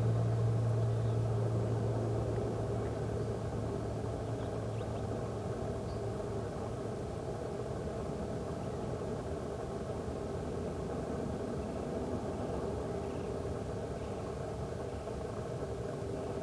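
Steady engine drone. Its deep low hum fades away about six seconds in, leaving a fainter steady hum.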